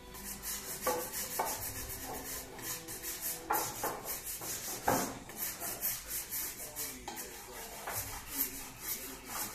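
Rapid back-and-forth rubbing strokes of a hand tool against the wooden rim of an old lamp table as the finish is worked off by hand, with a few light knocks of wood in between.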